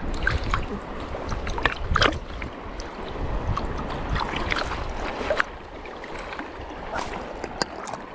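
Shallow seawater sloshing and lapping close by, with wind buffeting the microphone and a few short sharp ticks; the low wind rumble eases after about two seconds.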